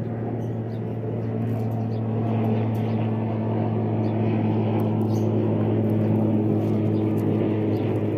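A motor or engine running steadily, giving a low even drone that swells a little about two seconds in. Brief faint high chirps from lovebirds come through now and then.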